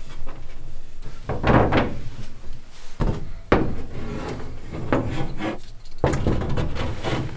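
Wooden ceiling hatch board being pushed up and shifted aside as someone climbs into an attic: wood scraping and rubbing, with several knocks, the sharpest about three and a half seconds in.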